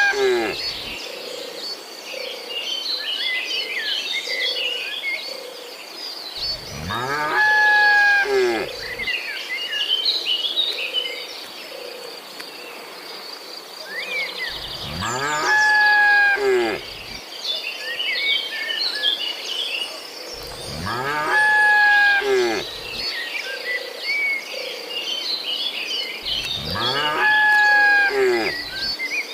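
Cattle mooing: long moos that rise and then fall in pitch, four full ones spaced about six to eight seconds apart, with the tail of another at the start. A steady high insect drone and scattered bird chirps run underneath.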